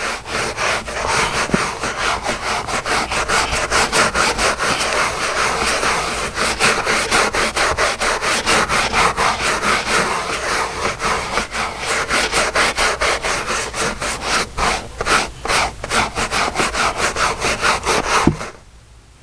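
Stiff brush scrubbing carpet by hand in fast back-and-forth strokes, about five a second, stopping near the end.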